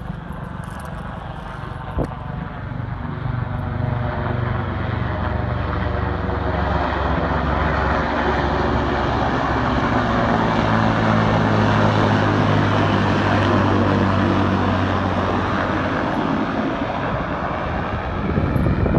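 Aircraft flying low overhead, its engine drone growing louder over several seconds, peaking around the middle and fading away near the end.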